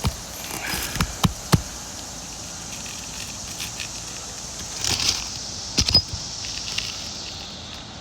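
Asphalt roof shingles being lifted and handled with a tool: a few sharp clicks and knocks about a second in and again around six seconds, with a brief crackling scrape just before the second group, over a steady high hiss.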